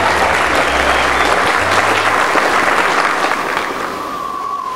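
Audience applauding, the clapping fading toward the end.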